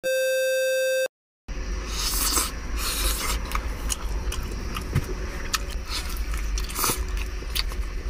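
A steady electronic beep tone for about a second, then close-miked eating: biting and chewing a roast chicken drumstick, with wet mouth smacks and clicks over a steady low rumble.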